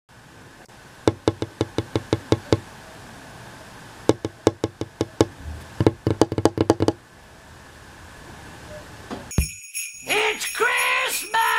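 Runs of quick, sharp taps, about six a second, in three short bursts. About two seconds before the end, a bright intro music jingle with bells begins.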